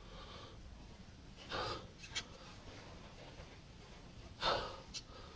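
Two short, hard exhales of effort and a few light clicks of a pry tool as the old rear main seal is worked out of the engine block.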